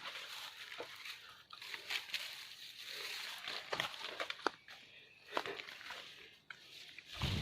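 Irregular rustling and crunching with scattered sharp clicks, and a louder thud near the end.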